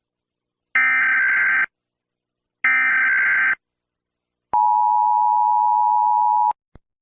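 US Emergency Alert System alert: two harsh, buzzy bursts of SAME header data about a second long each, one second apart, then the steady two-tone attention signal held for about two seconds and cut off sharply, followed by a single click.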